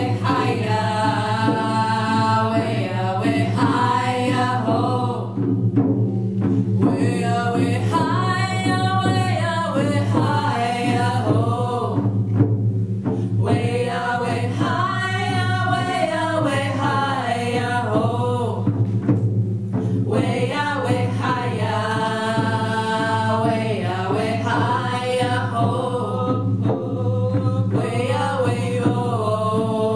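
Indigenous women's hand-drum song: four women singing together while beating hand-held frame drums in a steady beat.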